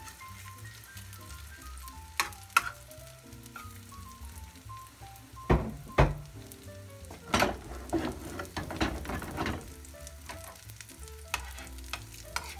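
Lentil burger mixture frying in a ceramic-coated pan with a low, steady sizzle. Utensils knock sharply against the pan a few times, then scrape and clink against it for a couple of seconds past the middle as the patty is pressed into shape.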